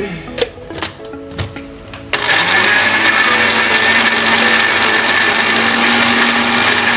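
A few light knocks and clicks, then about two seconds in a countertop blender switches on. Its motor spins up quickly and runs steadily at high speed, chopping garlic, onion and dried anchovies with water into a paste.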